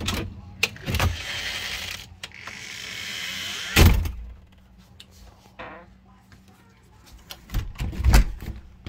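A house door being handled: knocks and thumps, a steady hiss for a few seconds, then a loud thud about four seconds in. Near the end the doorknob is gripped and rattled, with another cluster of knocks.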